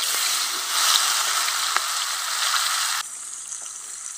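Pineapple chunks sizzling as they fry in a wok, a loud hiss that drops to a quieter sizzle about three seconds in.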